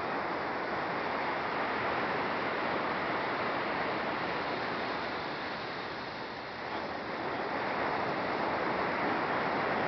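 Ocean surf washing onto a sandy beach: a steady rush of breaking waves that eases slightly about six seconds in, then builds again.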